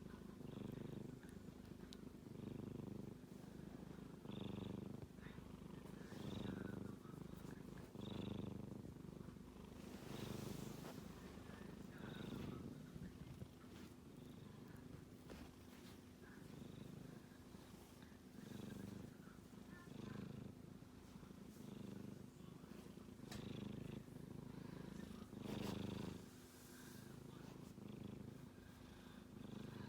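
Sleeping kitten snoring softly, a low rasp with each breath, about one every two seconds.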